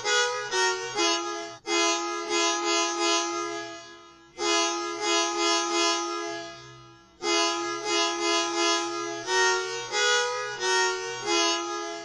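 Tour bus musical horn playing a short multi-note tune over and over, the phrase restarting about every three seconds, played back slowed down.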